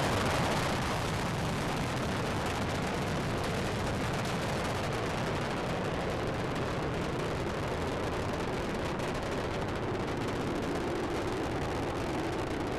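Space shuttle Discovery's solid rocket boosters and three main engines during ascent, a steady, even noise that eases off slightly.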